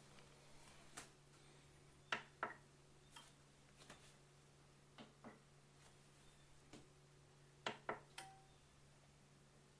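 Sharp clicks, several in close pairs, from the AC and DC power buttons of an EcoFlow River 2 Pro portable power station being pressed, over a faint steady low hum.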